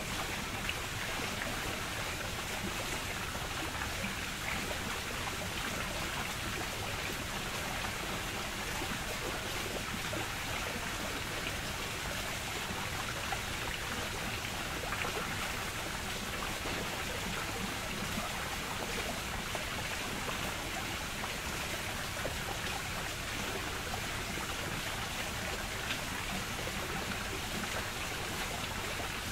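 Steady rushing, hissing water sound that holds unchanged throughout.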